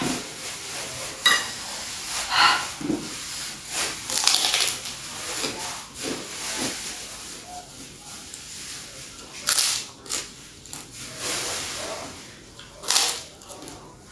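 Close-miked eating sounds: a person chewing, with irregular mouth noises and several louder short bursts, the loudest about nine and a half and thirteen seconds in.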